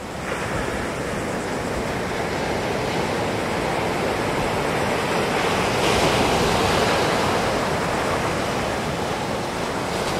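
Ocean surf: waves washing in as a steady rushing hiss, swelling a little louder about six seconds in.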